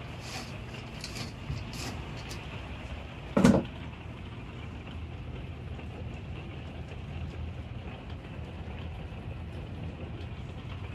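Steady rain falling on an RV's roof and awning, heard from inside, with a few drops ticking in the first couple of seconds. One loud thump comes about three and a half seconds in.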